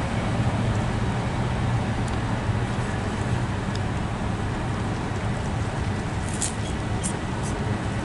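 Road traffic: a steady low engine hum from nearby vehicles with the noise of cars on wet pavement.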